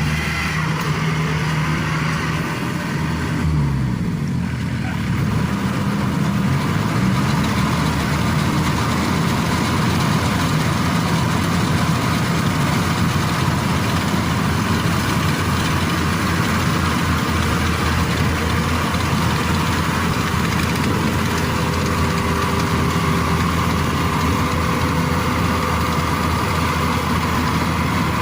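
Yanmar AW70V combine harvester's diesel engine running steadily. About three seconds in, its pitch dips and then climbs back up.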